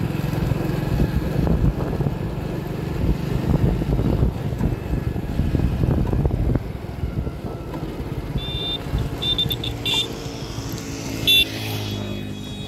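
Hero single-cylinder commuter motorcycle engine running while riding, with wind noise on the microphone. About halfway through the throttle is shut and it goes quieter as the bike slows to a stop, settling to a steady idle near the end.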